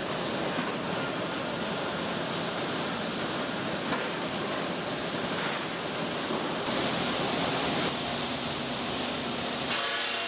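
Steady industrial noise of a hot steel rolling mill, with driven roller tables carrying red-hot bar. The noise shifts in character about two-thirds of the way in and again near the end.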